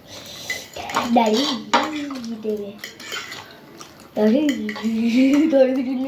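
Spoons clinking and scraping on plates as two people eat quickly. Twice a person's voice comes in over it with long, wavering tones: once about a second in and again after about four seconds. That voice is the loudest sound.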